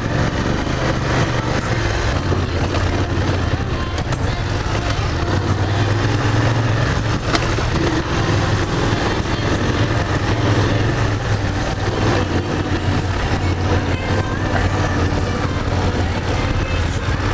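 BMW F 750 GS's 853 cc two-cylinder engine running steadily while riding along a dirt track, with steady wind and road noise on the camera microphone.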